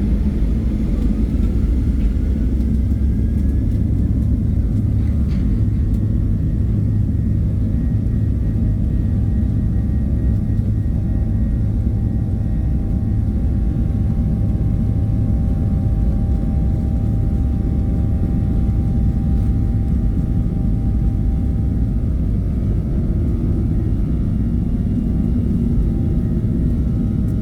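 Boeing 737-700 jet airliner noise: a steady low rumble with faint whining engine tones, one of which rises in pitch during the first few seconds.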